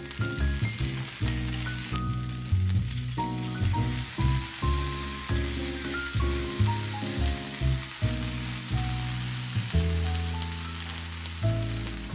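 Rice balls and fried tofu pouches sizzling in a frying pan, a steady crackling hiss, with background music of changing melody notes over a bass line.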